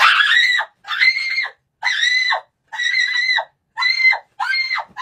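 A person screaming over and over, about six or seven short, high-pitched screams in a row, each under a second long and separated by brief gaps.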